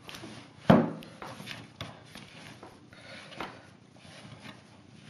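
Hands kneading and rolling castagnole dough on a wooden board: soft rubbing with a few light knocks, and one loud thump just under a second in as the dough or a hand hits the board.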